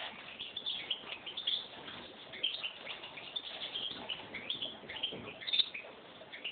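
Caged hybrid finch (a 'mixto') singing a continuous run of short, quick chirping notes.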